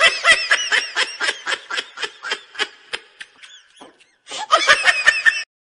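A woman laughing in quick, rhythmic bursts: a giggling bout of about three seconds, then after a brief pause a second, shorter bout.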